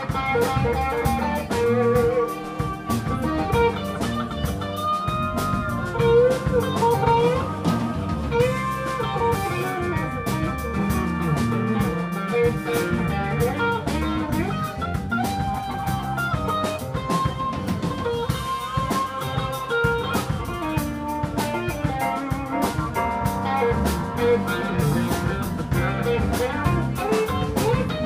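Live jazz-fusion band playing an instrumental: bowed violin, electric guitar, keyboard, bass guitar and drum kit. The melody has held and sliding notes over a steady drum-and-bass groove.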